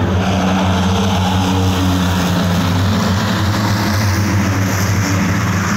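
Engines of a field of small stock race cars running together, a steady drone.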